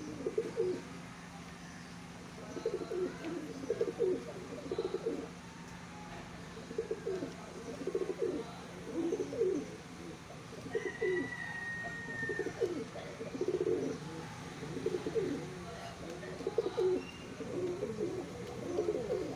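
Domestic pigeons cooing over and over, low rolling coos every second or so, over a steady low hum.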